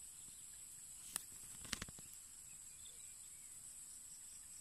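Faint, steady high-pitched chorus of insects, with a few sharp clicks about a second in and again shortly after.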